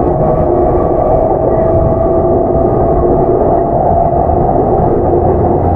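Running sound of a JR East E233-7000 series electric train with Mitsubishi IGBT VVVF control, heard from inside the car: a steady rumble of wheels on rail with a couple of level, unchanging tones, running at an even speed.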